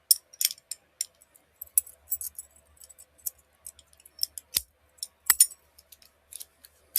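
Keys and a metal padlock being handled: scattered small metallic clicks and clinks, with two sharper knocks past the middle.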